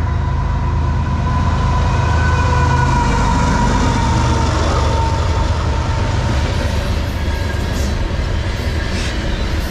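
CSX freight train passing close by, led by a GE ES44AC-H diesel locomotive: a deep engine rumble with a whine that drops slightly in pitch as the locomotive goes by, then the refrigerated boxcars rolling past with wheel clacks on the rail.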